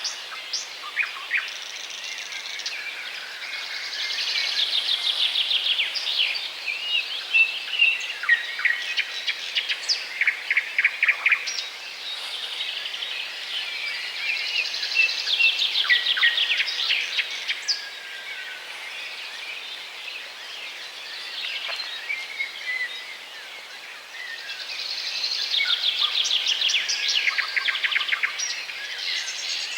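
Small songbirds singing and calling. A rapid trilled song phrase comes back three times, about every ten seconds, with separate short chirps between.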